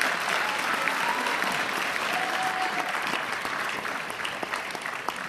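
Audience applauding, beginning to die down near the end.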